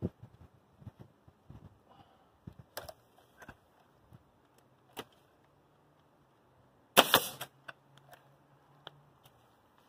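Pneumatic coil nailer firing twice in quick succession about seven seconds in, sharp loud shots, after a few lighter knocks as the tool is handled and set against the wall.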